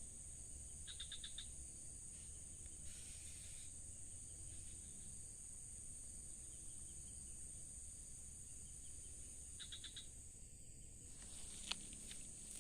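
Steady high-pitched insect chorus, with a short rapid pulsed chirping call twice: about a second in and again near the tenth second. A single sharp click comes near the end.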